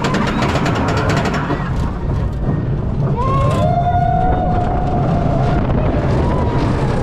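Spinning roller coaster heard from a seat on the train: steady rush of wind and rumble of the wheels on the track. A long, held, voice-like cry rises in about three seconds in and fades out near five and a half seconds.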